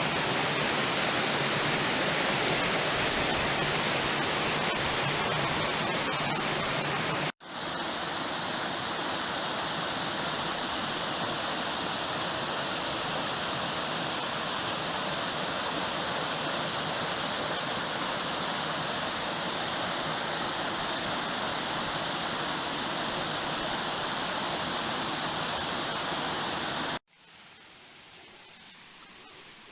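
Steady rushing of falling water from a waterfall, broken by two abrupt cuts. After the second cut, a few seconds before the end, it is much quieter.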